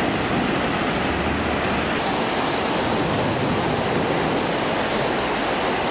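Brown floodwater surging in a torrent and pouring into a concrete storm channel: a steady, loud rush of water.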